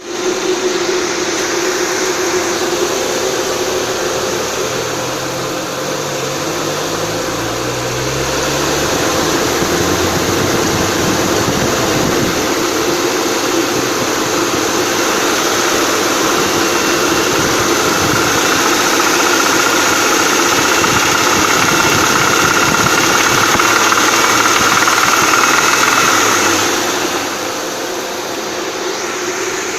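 Audi A6's 2.6 ABC V6 engine running hot with a knock in the engine that an oil change has not cured. It gets louder about a quarter of the way in and drops back shortly before the end.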